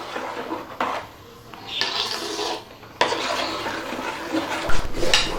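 A utensil stirring thick urad dal and coconut milk batter in a cooking pan, scraping against the pan in uneven strokes with a few sharper knocks. The batter is thickening into kali.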